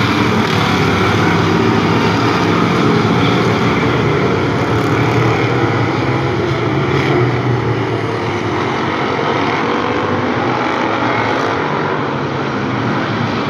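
A field of hobby stock race cars at racing speed, their engines droning together in a loud, steady mass of engine noise that eases slightly near the end.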